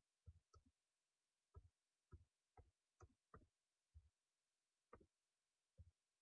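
Faint, slow typing on a computer keyboard: about a dozen single keystroke clicks at uneven intervals.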